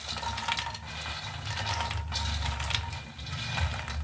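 Light, dry makhana (puffed lotus seeds) poured from a steel bowl into a non-stick kadai, landing and tumbling against the pan and each other as a scatter of soft clicks and rustles. A steady low hum runs underneath.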